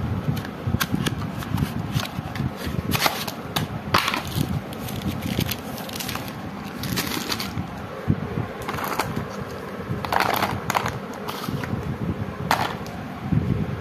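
Plastic-wrapped boxes of sparklers being handled and unpacked: crinkling and rustling with scattered sharp crackles, the loudest burst about ten seconds in.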